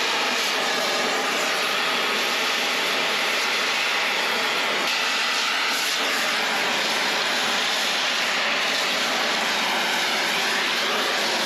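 Oxy-fuel cutting torch burning with a steady hiss, cutting away part of a steel plate.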